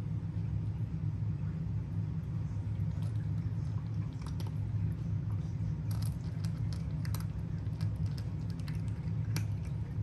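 A cat crunching dry kibble: irregular crisp crunches that come thicker from about halfway on. A steady low hum runs underneath.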